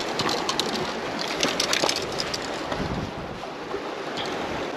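Climbing a boulder by a rope: scrapes and knocks of shoes, hands and gear against rock, thickest in the first two seconds, over a steady rush of wind and surf.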